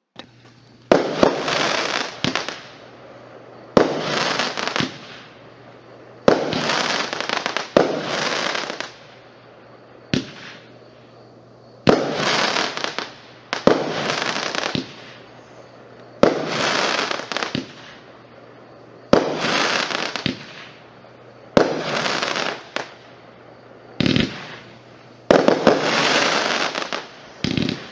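Consumer firework cake (a 20-shot brocade, strobe and red-star cake) firing in a demo recording: separate shots about every two to three seconds, each a sharp bang trailing off over about a second.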